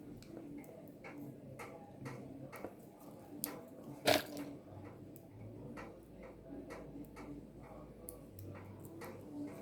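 Faint irregular clicks and rustling of the stripped twisted-pair wires of an Ethernet cable being handled and lined up by hand in their colour order, with one sharper click about four seconds in.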